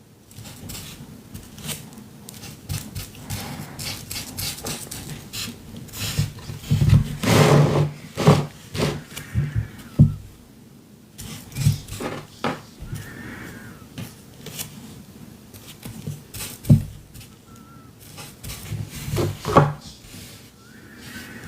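Paper handling while dictionary-page scraps are glued onto a canvas: scattered rustles and scrapes with short taps and knocks, and a longer, louder rustle about seven seconds in.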